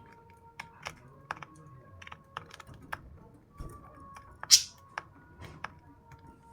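Irregular small clicks and taps, with one short, sharp, high-pitched sound about four and a half seconds in.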